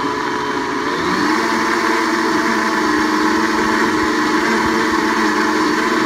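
Blendtec countertop blender running at high speed, blending a milk, ice and strawberry protein shake; its motor pitch rises about a second in, then holds steady.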